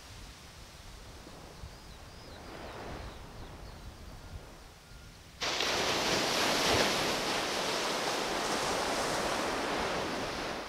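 Surf washing on the beach with wind on the microphone, a steady noise with no pitch. About halfway through it jumps abruptly much louder and stays steady until it cuts off just as abruptly.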